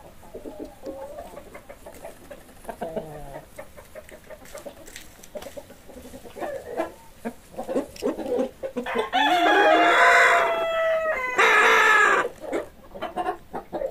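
Chickens clucking in short calls, then a rooster crowing loudly about nine seconds in: one long cock-a-doodle-doo lasting about three seconds with a long held note.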